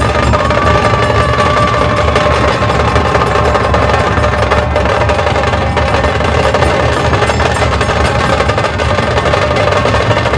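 Dhol and tasha drums of a Maharashtrian Dhol Tasha ensemble playing a loud, fast, continuous rhythm. Deep dhol beats sit under rapid, sharp tasha strokes.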